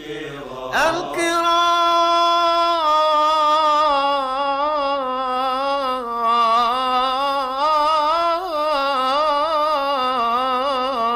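Solo male voice chanting an Islamic ibtihal, drawing one syllable out into a long melisma. It holds a steady note for a couple of seconds, then winds through quick wavering ornaments.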